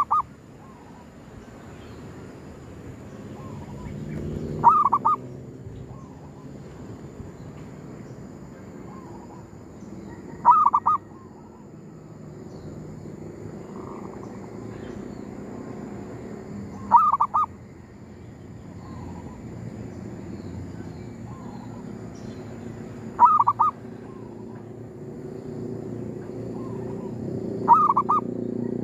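Caged zebra dove (perkutut) decoy cooing its short rolling phrase about every six seconds, with fainter dove calls in between.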